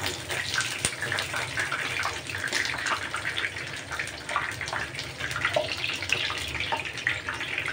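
Chicken patties shallow-frying in hot oil in a pan: steady sizzling and crackling of the oil, with one sharp click about a second in.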